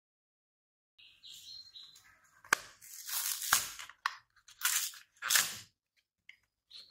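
Plastic food packaging being torn open and crinkled in several short bursts, with a couple of sharp clicks.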